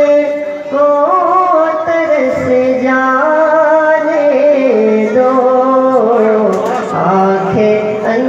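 A young man's solo voice singing a naat into a microphone, holding long notes with a wavering, ornamented pitch that steps down and back up.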